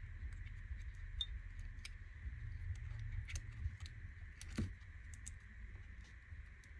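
Light, scattered clicks and taps from an opened iPhone 13 Pro Max frame and its new battery being handled and pressed into place, over a low steady hum; one sharper click about four and a half seconds in.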